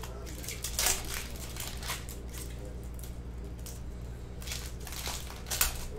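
Trading-card pack wrapper crinkling and tearing as it is opened by hand, with two louder bursts, one about a second in and one near the end.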